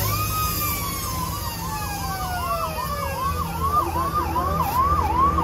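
An electronic siren sounds: a slow falling wail together with a rapid warble repeating about three times a second, over a steady low hum.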